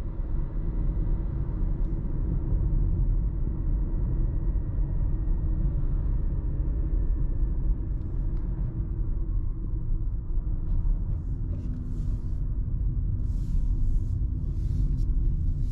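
Cabin noise of a Dacia Jogger Hybrid 140 driving at town speed: a steady low road and tyre rumble with a faint steady whine. In the last few seconds there are a series of light clicks.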